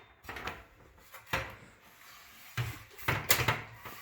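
Steps on a folding attic ladder's rungs: a string of irregular knocks and clunks, the loudest about a second and a half in and several more close together near the end.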